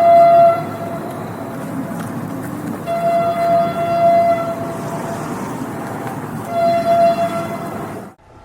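Train horn sounding three blasts: the end of one blast in the first half second, a longer one around three to four seconds in, and a short one near seven seconds. A steady rumble of the running train lies under the blasts, and the sound cuts off abruptly just before the end.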